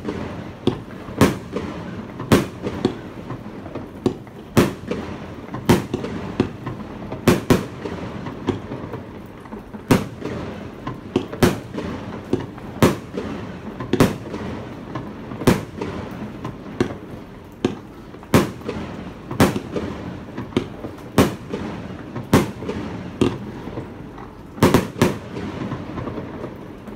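Aerial fireworks bursting one after another, about one sharp bang a second, each trailing off in an echo, with a louder close double bang near the end.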